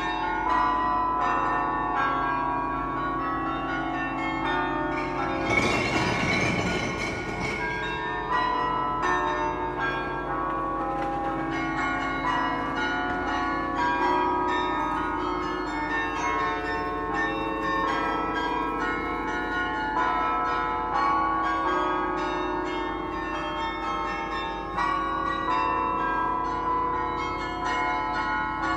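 The carillon of Utrecht's Dom Tower, its tuned bells struck one after another to play a melody, each note ringing on over the next. A brief burst of rushing noise cuts across the bells about six seconds in for around two seconds.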